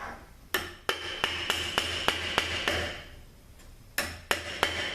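A run of quick, light hammer taps on metal, about three a second with a ringing note, pausing for about a second before a second run starts: knocking a THM-350 transmission's governor cover loose to pop it off.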